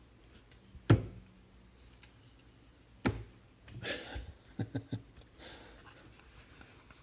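A stack of trading cards knocks sharply on the tabletop about a second in and again about three seconds in. Then come the rustle of cards sliding against each other and a few quick flicks as they are thumbed through by hand.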